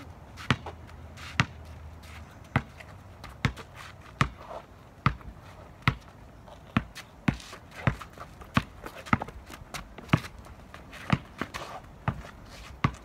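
A basketball being dribbled on asphalt: a steady run of sharp bounces, roughly one to two a second.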